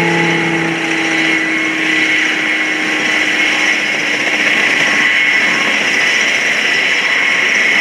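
Sukhoi Su-26's nine-cylinder M-14P radial engine running at low power as the aerobatic plane rolls out and slows on the runway after landing. The engine note sinks slightly and fades over the first few seconds, leaving a steady hiss.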